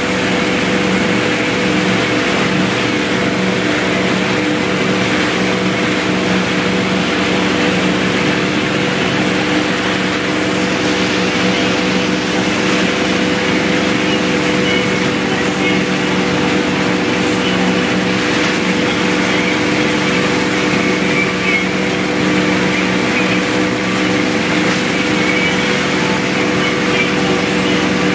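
Motorboat engine running at a steady speed, a constant drone, over the rush of churning wake water.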